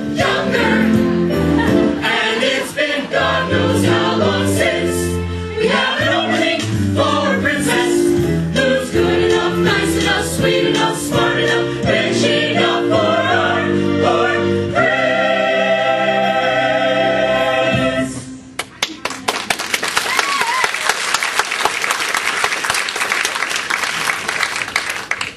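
Ensemble chorus singing a show tune with instrumental accompaniment, ending on a long held chord about fifteen seconds in. The audience applauds for the last several seconds.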